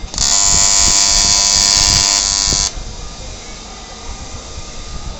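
TIG welding arc buzzing loudly and steadily for about two and a half seconds, then cutting off suddenly.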